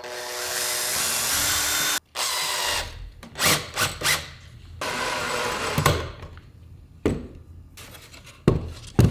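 Power drill driving a deck screw into wood, in a two-second run, then shorter runs with stops between. Sharp knocks come in the gaps and near the end.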